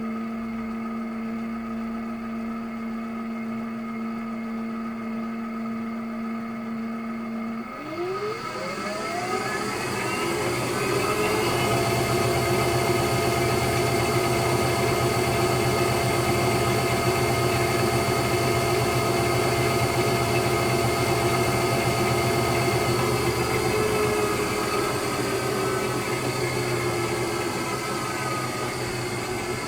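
Electrolux Wascator W355H commercial washing machine running with a steady motor whine, then rising in pitch from about eight seconds in as the drum speeds up into a spin. It holds at high speed with a louder rushing hum and starts to wind down near the end.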